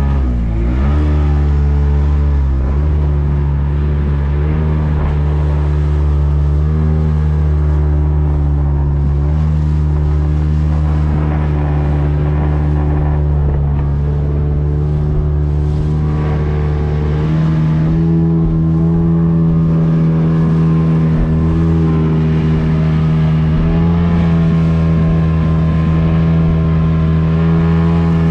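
Outboard motor pushing a small fibreglass fishing boat at speed, running steadily. Its pitch dips briefly and recovers just after the start, then steps up slightly about two-thirds of the way through.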